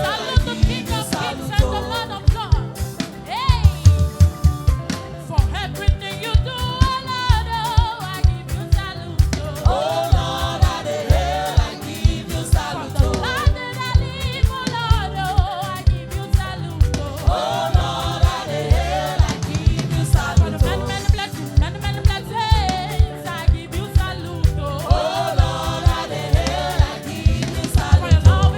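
Gospel song sung with instrumental accompaniment, the voices carrying a wavering melody over a steady, driving drum beat.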